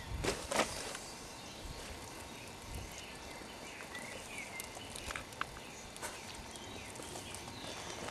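Outdoor lakeside ambience with faint bird chirps around the middle, and a few sharp clicks and rustles, loudest near the start, as a large mirror carp is handled and lifted from an unhooking mat.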